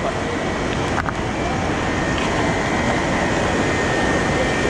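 Steady rushing of water pouring through a dam spillway, with a sharp click about a second in.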